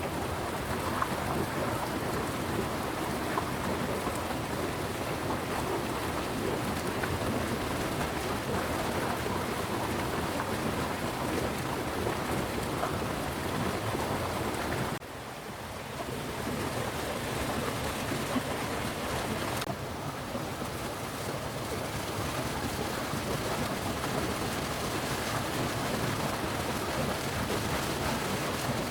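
Steady rain falling, an even hiss with no clear drips standing out. About halfway through the sound drops suddenly, then returns to the same level within a second or so.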